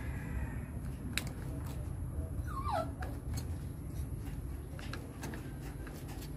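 Faint scattered clicks of pliers working on electrical wires as they are twisted into a pigtail splice, over a steady low rumble. About two and a half seconds in there is a short falling whine.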